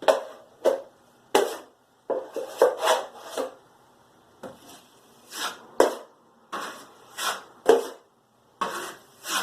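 Short rasping strokes of a hand drywall tool against drywall or joint compound, about fifteen of them at an uneven pace of one or two a second.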